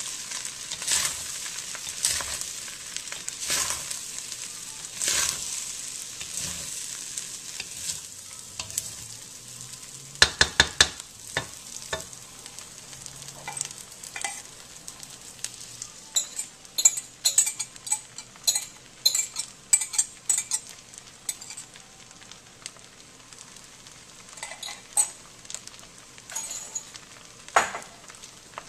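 Fried rice sizzling in a steel wok as a wooden spatula stirs it, scraping through the rice about once a second. About ten seconds in and again in the middle come quick runs of sharp taps, and there is one loud scrape near the end.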